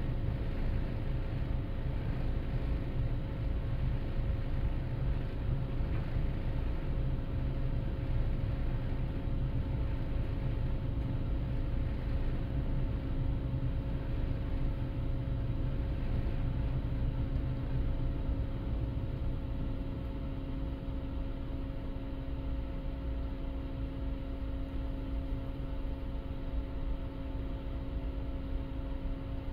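Steady low rumbling drone of a ferry's engines heard on board, with a constant hum over it; the deep rumble eases slightly about two-thirds of the way through.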